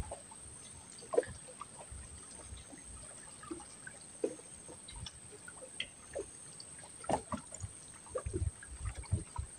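Quiet water trickling and lapping, with scattered small drips and clicks.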